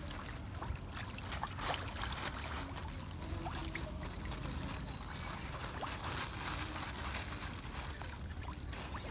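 Water splashing and sloshing as a crowded shoal of fish churns at the pond surface, with many small scattered splashes over a steady wash of water noise.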